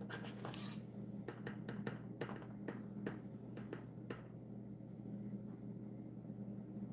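A small spoon clicking and tapping against the rim of a plastic jar while scooping powdered dye: about a dozen light taps in the first four seconds, then only a low steady hum.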